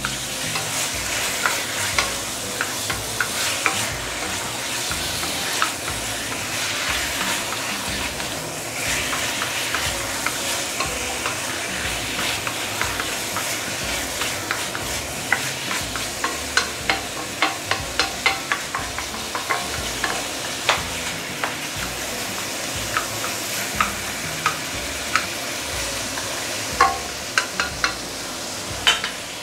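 Marinated chicken pieces sizzling in a stainless steel wok over medium-high heat, stirred and turned with a wooden spatula. Frequent short taps and scrapes of the spatula against the pan, coming more often in the second half.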